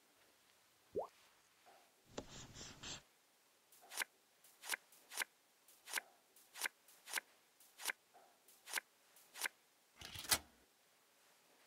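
A run of about a dozen sharp clicks, roughly two a second, as small pixel tiles are picked up and set down one by one. A short rising blip comes about a second in, and brief rustles come before and after the clicks.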